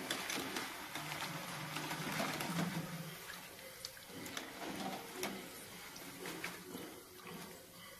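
Coconut oil sizzling and crackling in a steel kadai around frying banana chips, with scattered sharp clicks and rattles as the crisp chips are scooped out with a wire spider strainer.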